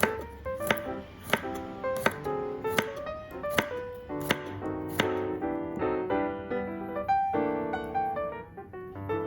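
Knife chopping on a cutting board at a steady pace, about one chop every 0.7 seconds, stopping about five seconds in. Piano background music plays throughout.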